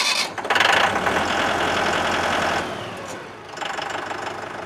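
Mahindra 45-series 50-hp tractor's diesel engine just after starting, running loudly for about two and a half seconds, then dropping back to a quieter steady idle.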